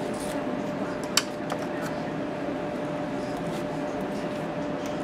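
Steady room hum with a faint held tone, with a sharp click just over a second in and a few lighter clicks after it as the foil and tinting tools are handled.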